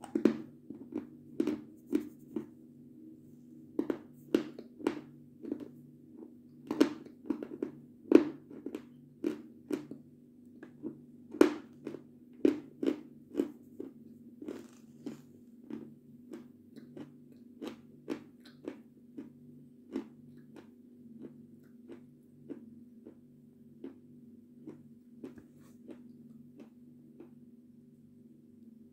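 Close-miked crunching and chewing of a white snack dipped in a runny mixture, about two crisp crunches a second, growing softer in the second half as the piece breaks down.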